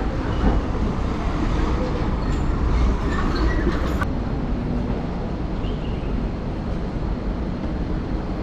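City street ambience: a steady rumble of road traffic, with a sharp click about four seconds in.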